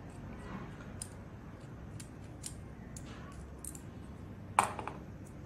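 Faint small clicks of a screwdriver working a tiny screw out of a HU66 decoder pick's metal shell, about one a second, then a louder sharp clack near the end.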